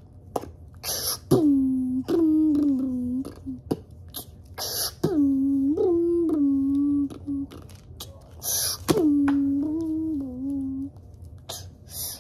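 A child's voice making music with the mouth: a short hissing "pssh" like a cymbal crash, then a wordless sung tune that steps downward, the phrase repeated three times about every four seconds, with scattered light clicks.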